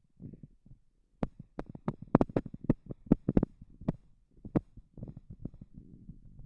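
Slowly falling water splashing and plopping in quick, irregular drops and splashes over a low rumble.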